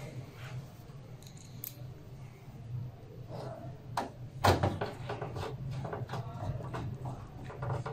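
A screwdriver driving screws into a desktop computer's motherboard and steel chassis: small metallic clicks and scrapes, with one louder knock about four and a half seconds in, followed by a run of quick ticks. A steady low hum runs underneath.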